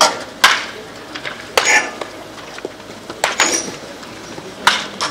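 Wooden baseball bats hitting baseballs in close-range tee and toss batting: about five sharp cracks, spaced unevenly a second or so apart.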